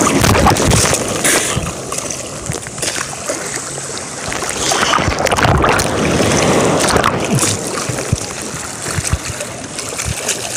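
Sea water splashing and sloshing against a phone held at the surface among waves. It is loudest as swells pass, about half a second in and again around five to seven seconds in.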